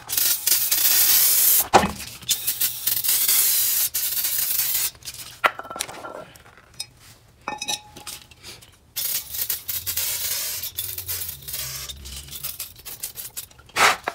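Aerosol brake cleaner spraying in several long hissing bursts, each two to three seconds, with light metallic clinks from the brake parts in the pause between them.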